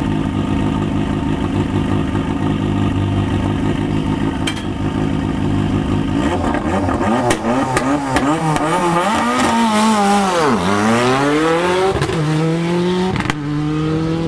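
Ford Escort rally car's engine running at steady held revs, then revved up and down repeatedly before launching and accelerating hard away. The pitch drops sharply once and climbs again through a gear change, with a few sharp cracks near the end.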